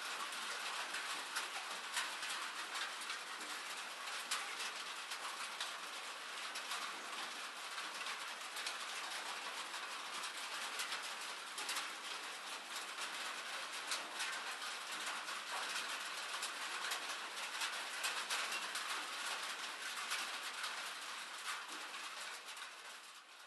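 Steady rain: an even hiss of falling water thick with small drop clicks, beginning to fade out near the end.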